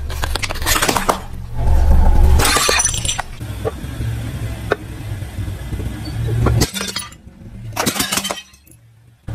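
A car tyre rolling over and crushing crockery, first a plate and then a row of upside-down bowls, which crack and shatter in a series of sharp breaks and clinks of shards. The loudest break comes about two seconds in, and another cluster near the end.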